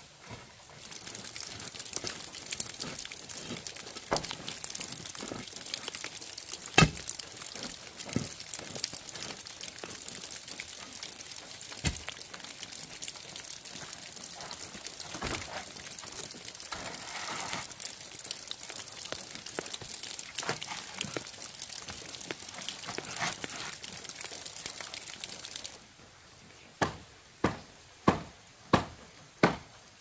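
Steady rustling and scraping with scattered small clicks and crunches of stones and dry debris underfoot during fence work. About four seconds before the end, after a sudden drop in the background, five sharp knocks come in an even row about two-thirds of a second apart, like a stake being pounded.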